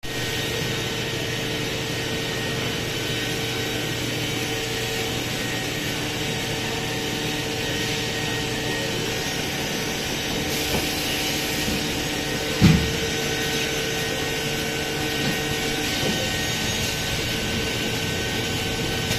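Steady machine hum of a wood-door CNC production line running, with a few constant tones through it. A single short knock comes about two-thirds of the way in.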